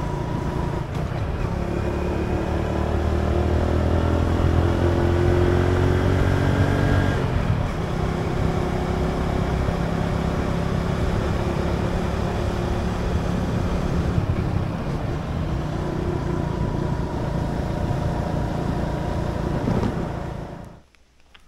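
Motorcycle engine running under way. Its pitch rises as it accelerates over the first several seconds, then it holds steady, and the sound cuts off suddenly near the end.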